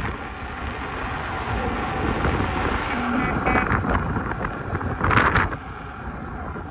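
Wind buffeting the microphone over the rumble of an Inmotion V12 electric unicycle's tyre rolling on a paved path at riding speed, louder for a moment about five seconds in.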